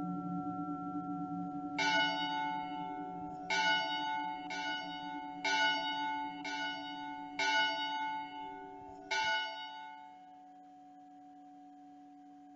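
Church bells tolling, about seven strokes roughly a second apart, stopping about two-thirds of the way through. Underneath, the steady ringing tone of a crystal singing bowl carries on alone after the bells stop.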